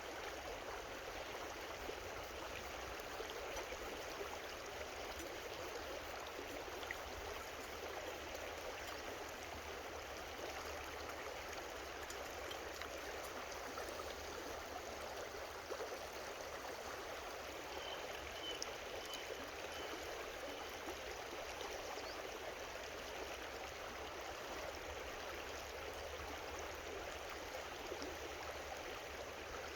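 Small rocky creek flowing, a steady babble of running water.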